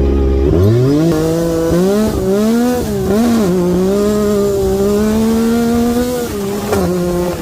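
A vehicle engine accelerating hard: it revs up about half a second in, wavers, holds a steady high pitch, then eases off near the end.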